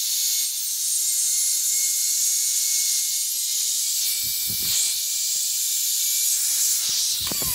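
Handheld Porter-Cable router running, a steady high hiss with a thin whine, while it is guided around the recess it has cut in a poplar door frame.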